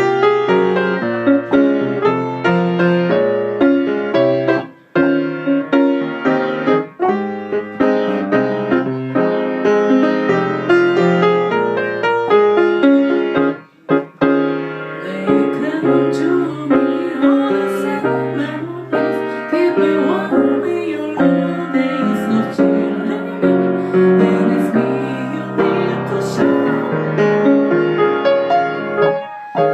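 Piano playing with several notes sounding at once and no singing, breaking off briefly about five seconds in and again about fourteen seconds in.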